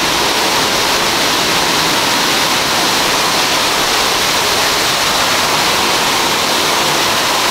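A waterfall pouring down over rockwork: a loud, steady rush of water.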